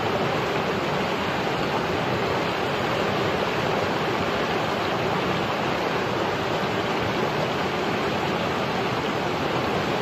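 Shallow stream water rushing and splashing in a steady, unbroken wash.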